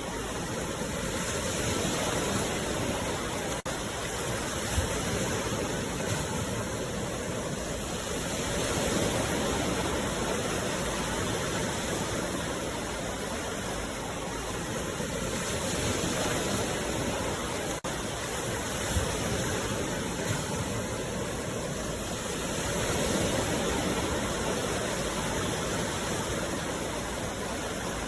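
Sea waves breaking and washing ashore: a steady rush of surf that swells and eases every six or seven seconds.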